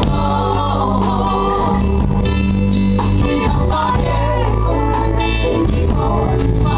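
Live band music: guitars and a bass guitar playing sustained notes under singing.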